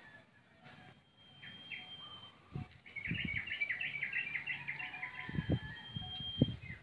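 Small birds chirping: a quick run of chirps about three seconds in, with a thin, steady high whistle held before and after it. Dull low thumps come now and then, the sharpest near the end.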